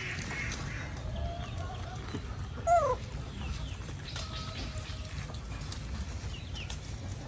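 Domestic chicken clucking, with one louder, short call falling in pitch about two and a half seconds in and a few fainter clucks around it, over a steady low rumble.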